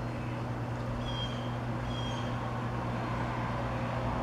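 Outdoor ambience: a steady low hum under an even background noise, with two brief faint high chirps about a second and two seconds in.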